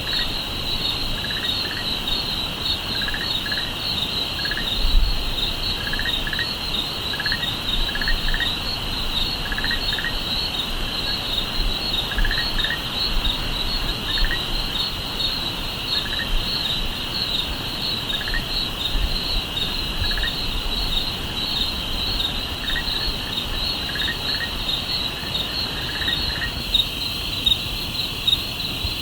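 Night chorus of crickets: a steady, high, pulsing trill, with a lower double chirp repeating about once a second that drops out near the end. A brief low thump comes about five seconds in.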